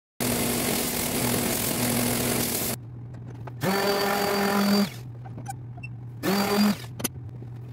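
DeWalt random orbital sander running in short spells: a loud whirr and whine that stops and starts again about three times. A steady low hum continues in the pauses.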